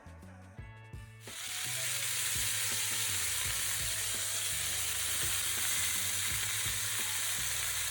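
Entrecote steaks searing in a very hot cast iron pan: a steady, even sizzle that starts about a second in.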